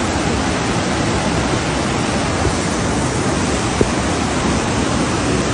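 Floodwater rushing through a street: a steady, loud wash of water noise.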